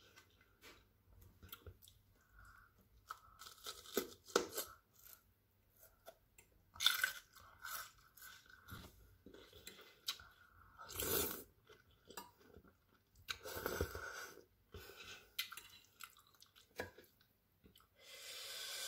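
Close-up chewing with several loud crunches at intervals: bites of a raw red bell pepper eaten along with fried instant noodles.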